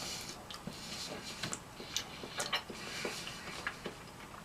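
Faint, irregular small clicks and smacks of someone eating and chewing food close to the microphone.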